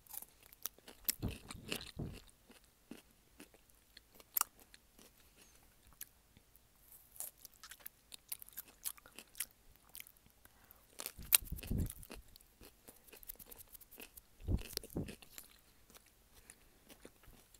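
A pickle being bitten and chewed: crunching bites with wet mouth clicks between them. The loudest crunches come about a second in, around eleven seconds and around fourteen seconds.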